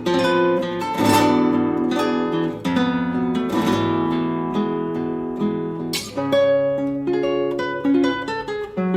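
Background music on acoustic guitar: strummed chords roughly once a second, giving way about two-thirds of the way in to single picked notes.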